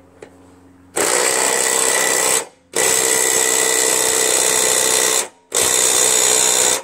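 Cordless impact driver running on a lawn tractor mower blade bolt in three long bursts with short pauses between, tightening the blade onto its spindle over a newly added washer.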